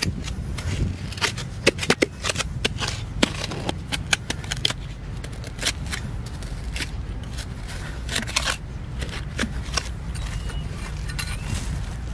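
Dry soil and clods being dug with a small hand tool and scooped by a gloved hand: irregular scraping and crunching with many sharp clicks, thickest in the first five seconds and again around eight seconds in. A steady low rumble runs underneath.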